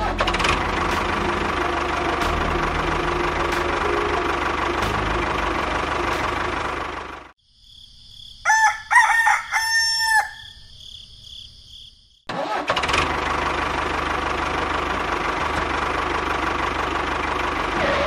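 An engine running steadily, which stops about seven seconds in. After a short near-silent gap a rooster crows, and the engine sound starts again about twelve seconds in.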